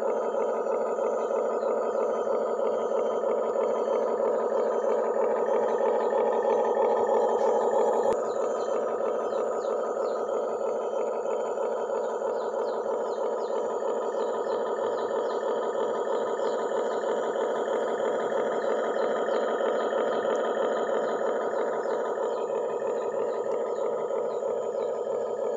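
Toy RC excavator's electric motors and gearboxes whirring steadily, with a slight drop in tone and level about eight seconds in.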